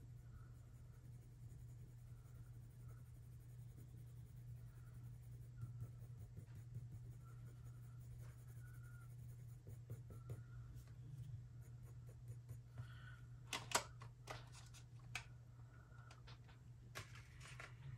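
Faint scratching of a colored pencil shading on watercolor paper, over a low steady hum. A few sharp clicks come near the end.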